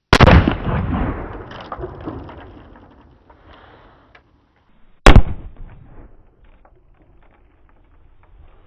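Two loud reports of a .30-06 armor-piercing rifle round fired into a level 4 ceramic armor plate, about five seconds apart. The first fades off in a long echo over a few seconds; the second dies away faster.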